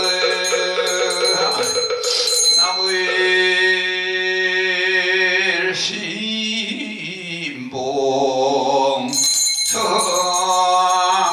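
A Buddhist monk chanting in long, drawn-out held notes. A hand bell is shaken in a rapid jingle during the first couple of seconds and again from about nine seconds in.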